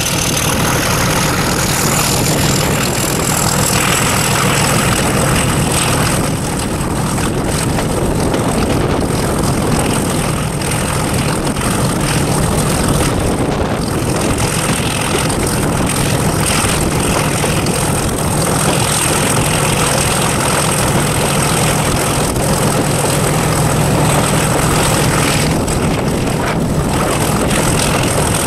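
Diesel locomotive engine working under power, heard from the train window as a steady, heavy drone mixed with wind and running noise. A high whine rises over the first few seconds, then holds steady.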